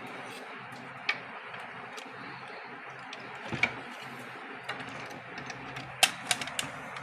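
Screwdriver and small plastic and metal parts clicking and tapping as the cover screws over a label printer's gear are tightened back: a few scattered sharp clicks, with a quick cluster near the end, over a steady low hum.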